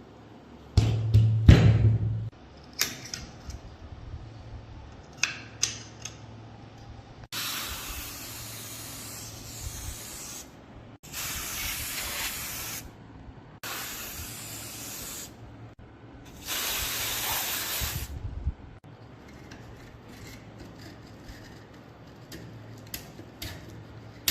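A couple of loud knocks about a second in, then a spray hissing in four separate bursts of one to three seconds each, as from an aerosol can sprayed onto the gun parts.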